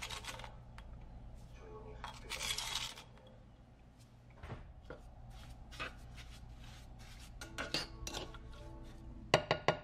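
Sugar is poured from a spoon onto sliced strawberries in a saucepan, a short pouring hiss, with light clinks of spoons against the pan and glass jar. A few sharp knocks come near the end.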